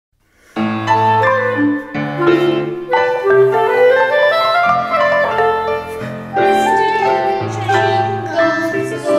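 Instrumental music from a small chamber ensemble, starting suddenly about half a second in: a woodwind melody over piano and low bass notes.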